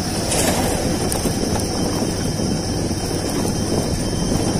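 Motorcycle riding over a rough, stony dirt road: the engine runs steadily and the tyres rumble over loose gravel. A steady high buzz of insects carries over it.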